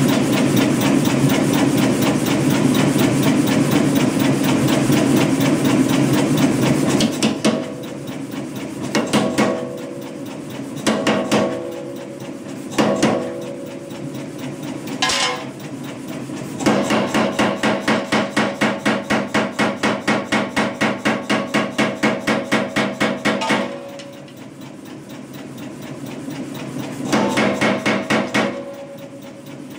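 Kuhn self-contained air power hammer striking hot steel between its dies in fast runs of blows, several a second. A long run at the start gives way to short bursts and a single blow, then another run of about seven seconds and a short burst near the end. Between runs the hammer's motor keeps running.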